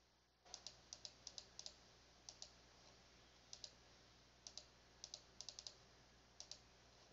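Faint computer mouse button clicks: about a dozen clicks in irregular groups, each a quick double tick of press and release.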